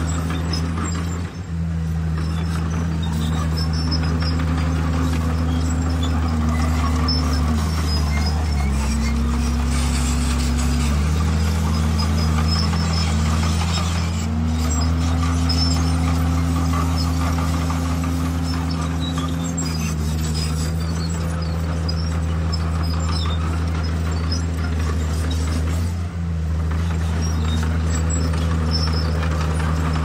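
Heavy diesel engine of earthmoving machinery running continuously, its pitch shifting up and down several times, with two brief drops in loudness.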